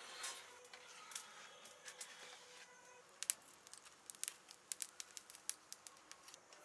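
A spoon stirring milk pudding in an aluminium pan, then, about halfway through, a run of sharp irregular crackles and snaps as thin dry sticks are fed into a clay stove's wood fire.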